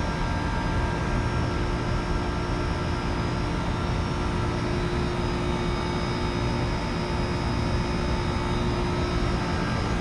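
2013 Trane XB13 4-ton heat pump's outdoor unit running steadily in its defrost cycle: a constant compressor hum with a few steady whining tones over it.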